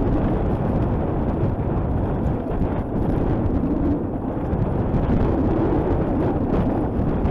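Steady wind rumble on a mountain bike's onboard camera microphone as it rides a dirt forest trail, mixed with the rattle and jolts of the bike over the rough ground.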